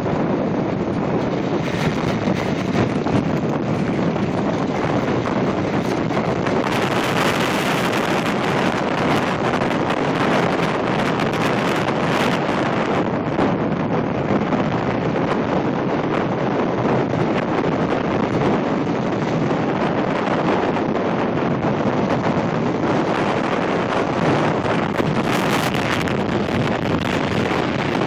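Steady wind rushing over the microphone of a camera carried on a moving motorcycle, with a few louder, hissier gusts.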